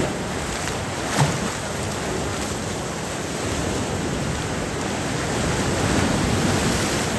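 Ocean surf washing steadily onto a sandy beach. A brief knock sounds about a second in.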